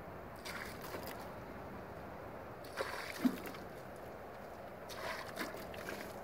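Water poured from a plastic bucket, splashing and running over the sawn face of a log on a sawmill, in three pours with a short knock a little after three seconds.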